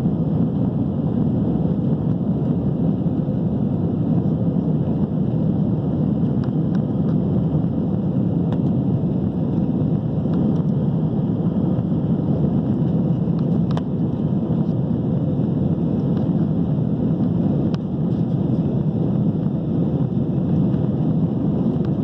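Steady cabin rumble of a Boeing 737-800 in flight, its CFM56 engines and the airflow making an even, low roar that does not change.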